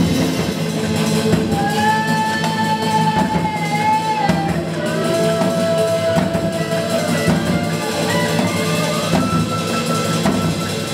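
A drum kit played by a drummer with a robotic prosthetic arm carrying two sticks, one of them improvising under AI control. Over the drumming, a melody moves in long held notes, one after another.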